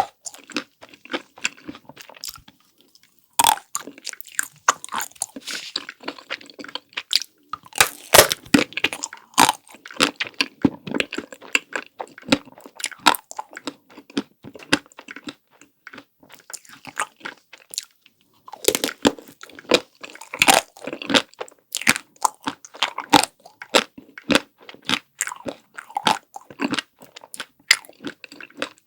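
Close-miked biting and chewing of chocolate-coated ice cream, the hard chocolate shell cracking in crisp crunches one after another, with a short pause about three seconds in.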